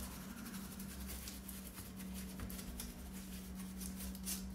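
Brush wet with alcohol scrubbing across a laptop motherboard to clear dust: a quick, uneven run of light scratchy strokes, over a faint steady hum.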